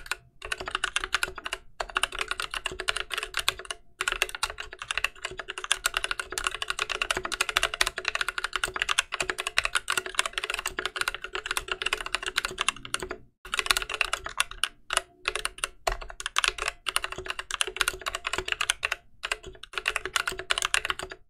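Fast, continuous typing on an NK65 aluminum mechanical keyboard with stock, unlubricated NovelKeys Cream linear switches and GMK keycaps: rapid keystroke clacks with a few short pauses, the longest about 13 seconds in.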